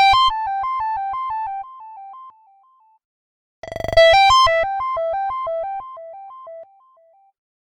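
Android Gingerbread (CyanogenMod 7) ringtone: a bright synth phrase of quickly alternating notes that steps downward and fades away, rung twice about four seconds apart.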